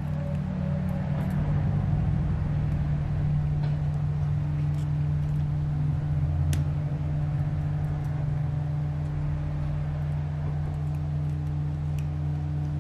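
A steady low machine hum, with a few faint sharp clicks of pliers working a small metal jump ring open.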